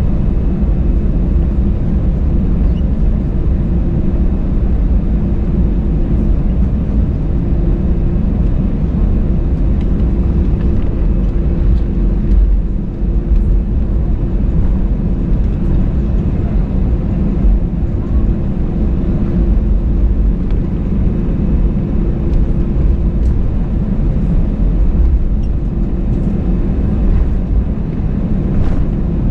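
Airbus A320-200 engine and airflow noise heard inside the passenger cabin: a steady low rumble with a faint constant hum.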